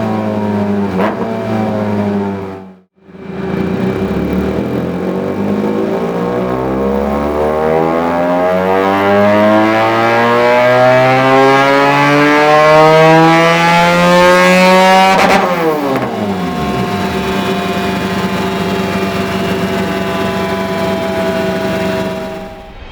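Benelli 302 S parallel-twin engine through a Dominator aftermarket exhaust in a full-throttle dyno pull: after a brief break, the revs climb in one long steady rise for about twelve seconds, then the throttle is shut and the revs drop quickly before it runs on steadily.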